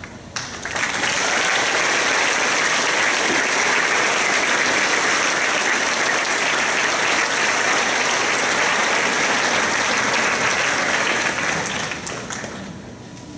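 Audience applauding: a steady round of clapping that starts about half a second in and dies away near the end.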